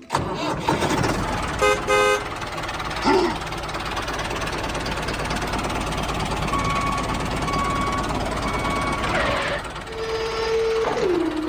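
Tractor engine running steadily, with a short double horn toot about two seconds in. Three short beeps come in the second half, then falling tones near the end.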